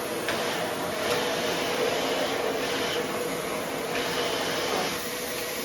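A steady machine noise: an even rushing sound with a constant hum, and a few faint clicks.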